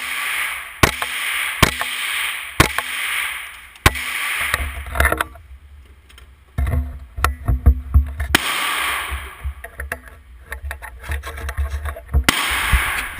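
Gunshots at a shooting range, sharp reports roughly a second apart at first, then more irregular and in quicker clusters, over wind rumbling on the microphone.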